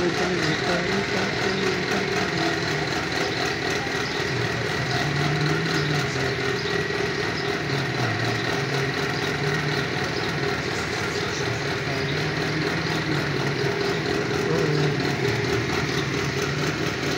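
Steady mechanical drone of a running motor, with a faint high whine held throughout and a low wavering tone that comes and goes.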